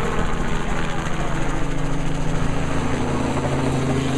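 Helicopter engine and rotor running with a steady drone and fast blade flutter, close enough to be loud.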